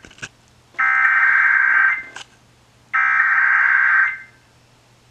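Emergency Alert System SAME header: a screechy digital data tone sent in bursts about a second long with a second's pause between. The end of one burst is followed by two more. The bursts encode the coded alert that opens the flood warning broadcast.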